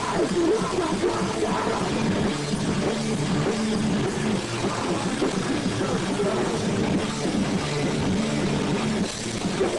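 Rock band playing live: distorted electric guitar through amplifiers, bass and drum kit, in a dense, unbroken wall of sound.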